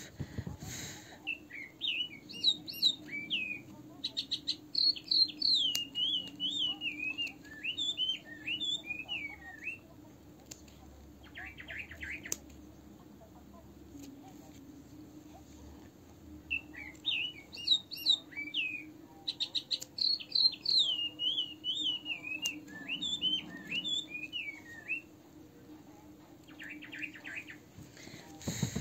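A songbird singing: two long runs of quick, chirping, warbling phrases, each followed by a short fast trill, over a faint steady low hum.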